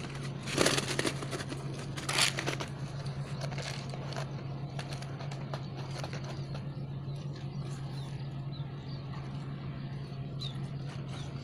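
Rustling and scraping as handfuls of armored catfish are dropped into a cloth sack, two louder bursts in the first few seconds, then quieter scattered handling clicks, over a steady low hum.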